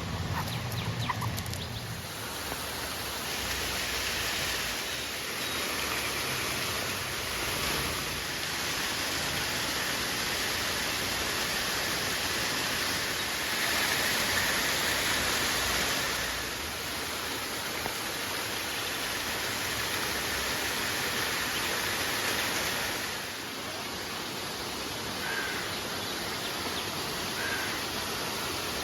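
River water rushing steadily, its loudness stepping up and down a few times.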